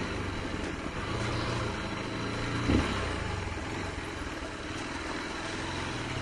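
Honda XR trail motorcycle's single-cylinder engine running under load as it is ridden up a snowy off-road track, its pitch rising and falling with the throttle.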